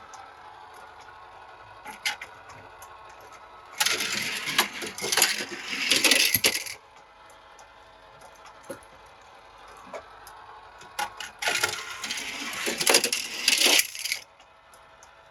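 Small toy cars clattering and rattling against hard surfaces in two bursts of about three seconds each, with a few sharp clicks in between.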